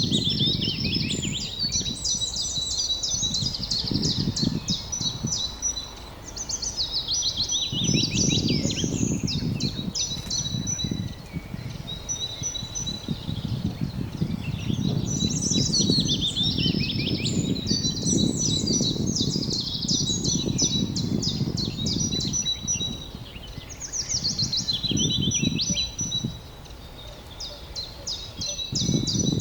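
Wild birds singing and chirping in rapid trills and repeated short notes, phrase after phrase, over a low rumbling noise that swells and fades every few seconds.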